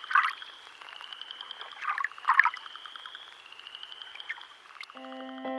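Nature ambience of insects trilling steadily and frogs calling, with a few louder calls in the first half. Piano-like keyboard music begins near the end.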